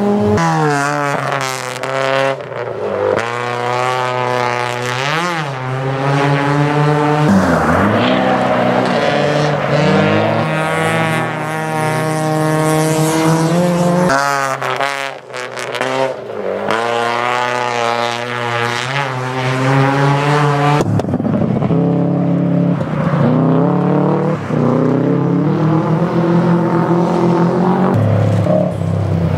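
Racing car engines revving hard on a gravel circuit, the pitch climbing and then dropping back every few seconds as the drivers shift gears.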